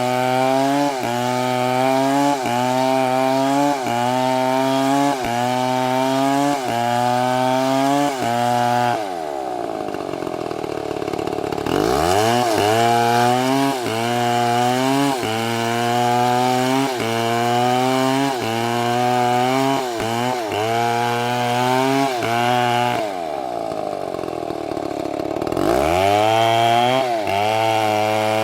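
STIHL MS720 two-stroke chainsaw running under load, its engine pitch rising and dropping in a steady rhythm about once every 0.7 seconds. Twice the engine falls to a low speed for a few seconds and then revs back up.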